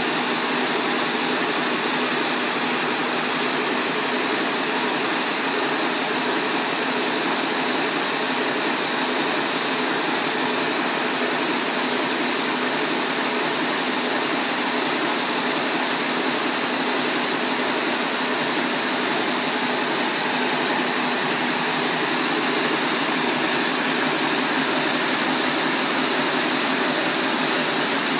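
RA-16-4 high-speed braiding machine, with others like it, running at speed: the bobbin carriers circling the deck make a dense, steady mechanical noise strong in the high pitches, with no change in speed.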